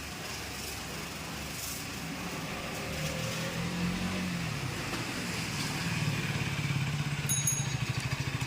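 KTM single-cylinder motorcycle engine running at low revs as the bike comes closer, growing louder from about three seconds in. Near the end it settles into an even, fast pulsing.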